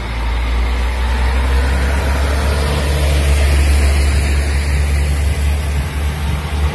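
Two coupled SA132 diesel railcars pulling away from a station, their diesel engines running under power with a deep, steady drone as the train moves past close by.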